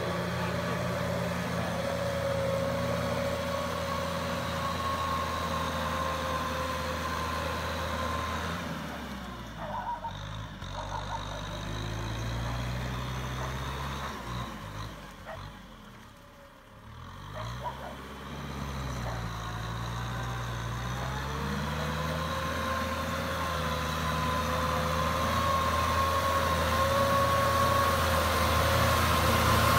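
Kubota M6040SU tractor's diesel engine running under load as it works a flooded rice paddy on steel cage wheels, with a steady whine over the engine note. About halfway through the sound drops briefly and the engine note falls and rises again, and it grows louder near the end.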